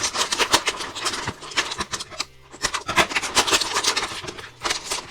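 Hands handling a plastic toy boat and its packaging: an irregular run of crackling and scraping that pauses briefly about two seconds in.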